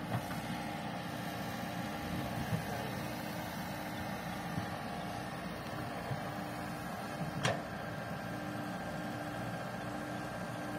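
Compact excavator's diesel engine running steadily as it digs and loads a dump truck, with one sharp knock about seven and a half seconds in.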